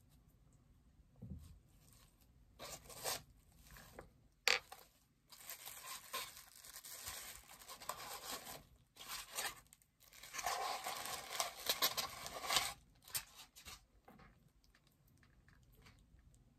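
Hands opening a bobblehead's cardboard box and packaging: several stretches of handling noise a few seconds long, with one sharp click about four and a half seconds in.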